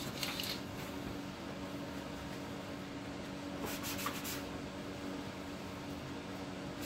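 A shop towel rubbing and wiping along a metal engine oil dipstick in a few short scratchy strokes about four seconds in, over a steady low mechanical hum.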